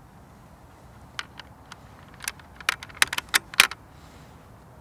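Sako S20 bolt action being worked by hand: a series of sharp metallic clicks and clacks, scattered at first, then quicker and louder near the end.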